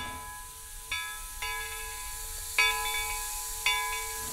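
Soft background music: notes struck about once a second over a held tone, with a steady high hiss underneath.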